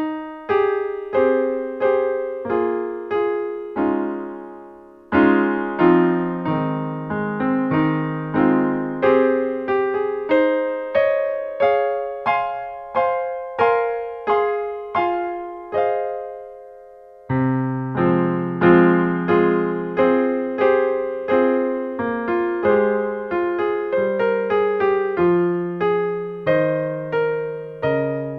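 Background piano music: a gentle melody of struck notes, about two a second, each ringing and fading. Twice the playing stops and the sound dies away for about a second before it resumes.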